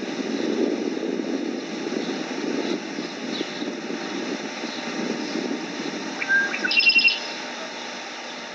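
A bird calls about six and a half seconds in, a short clear note and then a fast run of higher repeated chirps. Under it runs a steady low outdoor rumble.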